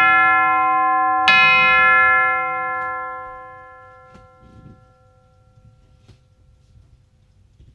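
A Herschede grandfather clock's tubular chime rings, struck again on the same note about a second in. The long, bright ring fades away over the next few seconds.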